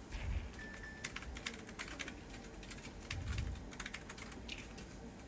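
Quiet, irregular light clicks and taps of a hydra facial machine's controls being pressed and adjusted, with soft low thumps just after the start and again about three seconds in.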